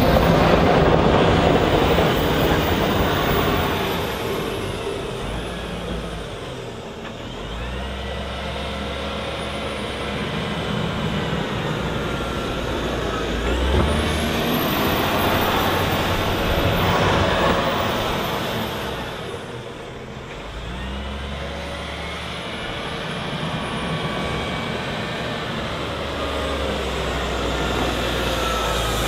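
Volvo L60H wheel loader's diesel engine working hard, revving up and dropping back over and over as the machine clears and shifts snow, with a high whine that rises and falls with the revs.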